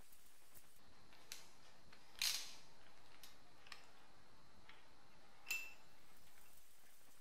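Scattered light metal clicks and clinks of engine parts being handled while the in-sump oil filter housing is fitted to the oil pump, with a sharper knock about two seconds in and a clink that rings briefly about five and a half seconds in.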